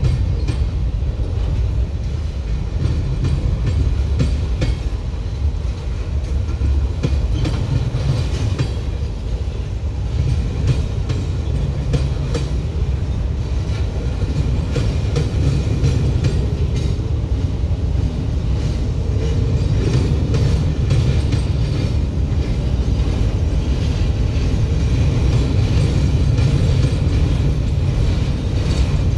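Freight train rolling past: a steady rumble of the cars, with the wheels clicking over the track.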